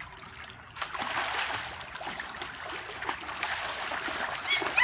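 Water sloshing and splashing in an above-ground frame pool as children move about and one goes under into a handstand. A child's voice breaks in briefly near the end.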